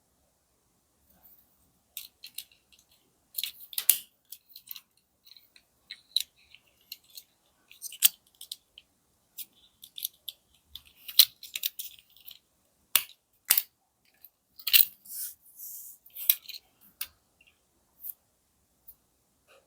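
Irregular small clicks, taps and short rustles from a 1/64 die-cast toy car and its plastic packaging being handled, with brief pauses between them.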